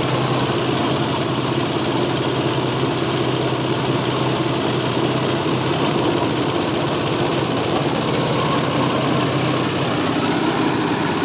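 Engine-driven shredding machine running steadily under load as it chops foam for pillow and mattress filling: a small stationary engine running, mixed with the whir and rattle of the shredder's rotor.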